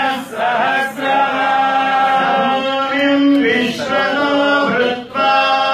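Several male voices chanting a Hindu devotional hymn together, held notes with gliding pitch, sung in phrases with short breaths between them.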